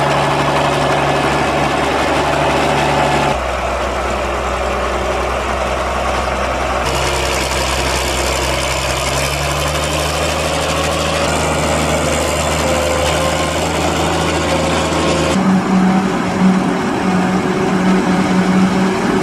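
County 1124 tractor's diesel engine running steadily under load while it pushes and levels chopped maize. The engine note changes abruptly several times, and a pulsing hum comes in for the last few seconds.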